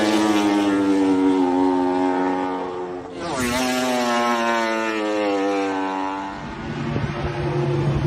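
Suzuki GSX-RR MotoGP bike's inline-four racing engine at high revs, pulling away after passing close by, its note holding steady with a brief dip about three seconds in. Near the end a lower engine note and gusts of wind take over.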